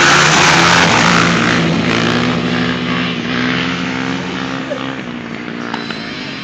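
Two dirt bike engines running at steady throttle as the bikes pass close by on a wheelie, loudest as they go past and then fading as they ride off.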